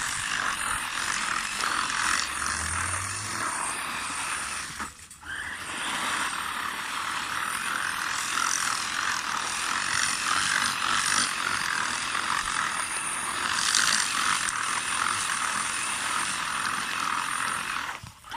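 An upgraded 1/8-scale electric RC buggy (XTM XT2e with an Arrma Nero motor) spinning donuts under power: a steady rattling drivetrain whine over tyres scrubbing on the ground. The sound drops out briefly about five seconds in, then picks up again.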